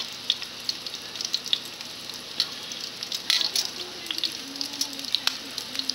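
Breaded chicken cordon bleu roll frying in hot oil in a stainless steel pot: a steady sizzle with irregular crackles and pops.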